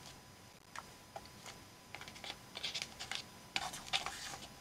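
Paper rustling and rubbing as hands press and smooth cut-out paper pieces onto a collage journal page. It is faint at first, then a run of short scratchy rustles from about two seconds in.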